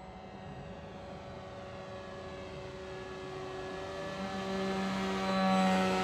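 Radio-controlled model paramotor's small propeller motor running steadily as the model climbs overhead. It is a steady buzzing hum that grows louder, loudest about five and a half seconds in.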